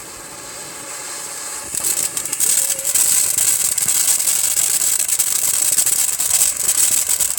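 A lit firework spraying sparks, with a steady hiss full of crackling that grows louder about two seconds in and then stops suddenly as it burns out.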